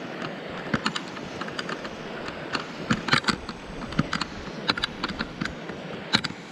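Footsteps through dry grass and twigs, with irregular sharp clicks and clinks of gear on a chest camera strap, over a steady background rush.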